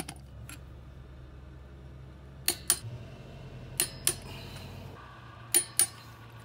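A wrench working the lug nuts of a wheel gives three pairs of sharp metallic clicks, a little over a second apart, over a steady low hum.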